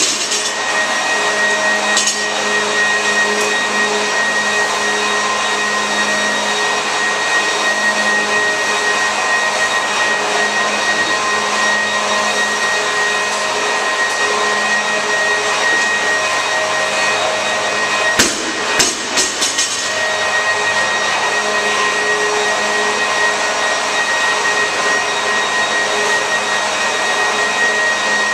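Steady whir of a large drum fan running, with a few constant tones in it. About eighteen seconds in, a short clatter of knocks comes as the loaded barbell goes back down to the floor.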